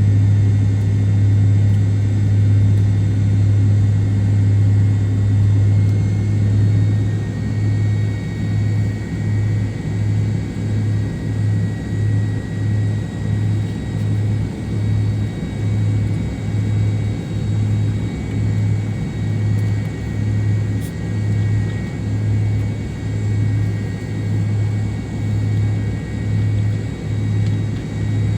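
Cabin drone of the MD-88's twin rear-mounted Pratt & Whitney JT8D engines: a steady low hum with a faint high turbine whine. From about a quarter of the way in, the hum swells and fades about once a second, the beat of the two engines turning at slightly different speeds.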